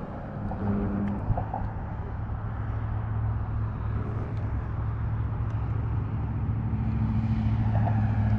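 Boat motor running steadily with a low, even hum, getting gradually louder toward the end.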